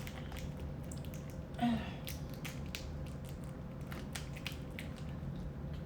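Close-up eating of crab: wet chewing, squishing and many short clicks from mouth and shell, with a brief vocal 'mm' about a second and a half in, over a steady low hum.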